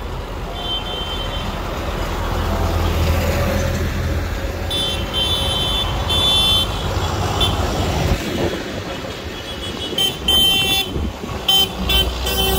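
Tractor engines rumbling as tractors drive past, the rumble swelling over the first several seconds, with a vehicle horn tooting repeatedly: a run of toots about five seconds in and several short blasts near the end.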